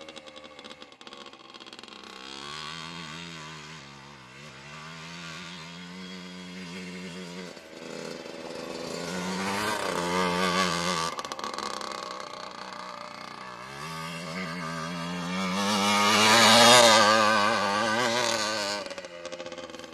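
Yamaha Blaster ATV's two-stroke single-cylinder engine revving up and down as it is ridden around on gravel, growing louder as it comes near about ten seconds in and loudest about seventeen seconds in.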